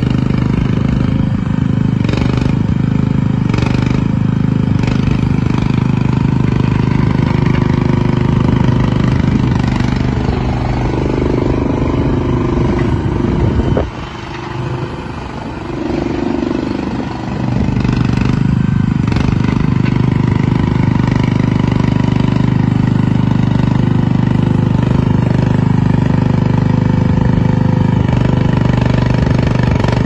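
MachPro MP-S300 tracked mini skid steer loader's engine running steadily as the machine drives and turns. Its sound drops away for a few seconds about halfway through, then comes back at the same steady level.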